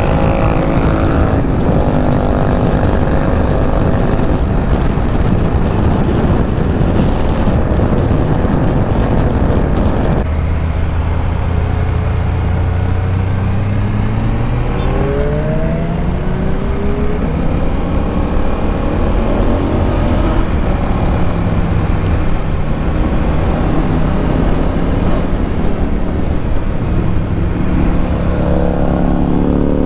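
Heavy wind rush over the rider's microphone at about 150 km/h, with a KTM Duke 390's single-cylinder engine running underneath. About ten seconds in the wind noise drops away abruptly and the engine is heard plainly at low speed, its pitch rising as it accelerates through the gears, and rising again near the end.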